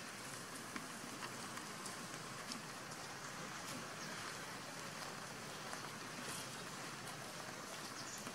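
Steady outdoor background hiss with many faint, scattered ticks and crackles.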